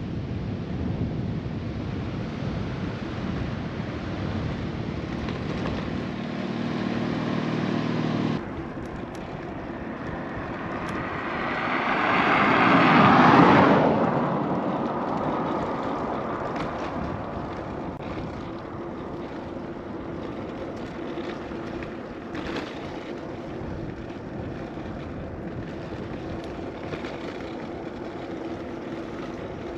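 A motor vehicle passes by on the road, growing louder to a peak and fading away over about five seconds. Before it, an even rushing noise with a low hum stops suddenly, at what looks like a cut.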